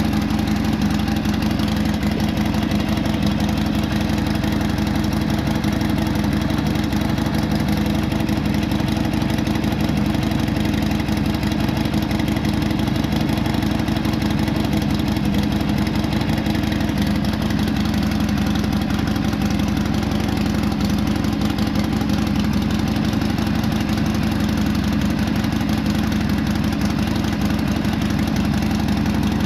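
Harley-Davidson Iron 883 Sportster's fuel-injected air-cooled Evolution V-twin idling steadily just after being started. It is run after an oil change so the oil pump draws fresh oil from the tank through the engine.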